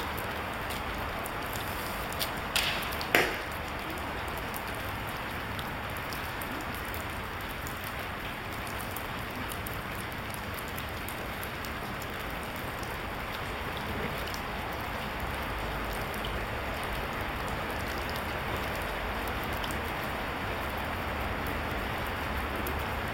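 A Japanese yumi longbow is loosed: the string gives a sharp snap about two and a half seconds in, and a second, louder crack follows about half a second later as the arrow strikes the target. A steady hiss lies underneath.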